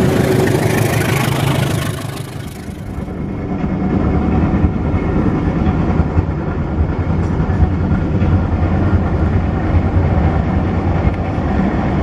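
Passenger train running: a steady low engine hum with rail noise, dipping briefly about two seconds in.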